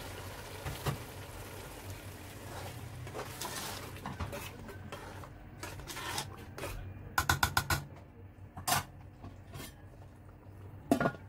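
Metal spoon stirring a simmering beef and tomato sauce in a metal pot, clinking and knocking against the pot. There is a quick run of about six clinks about seven seconds in, then a couple of single knocks.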